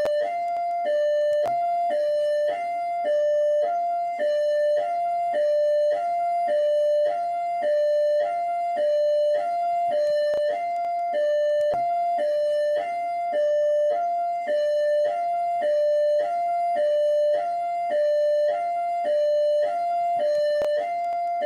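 PMERJ police siren in hi-lo mode: two tones, one high and one a little lower, alternating steadily, about one high-low cycle every 0.8 seconds.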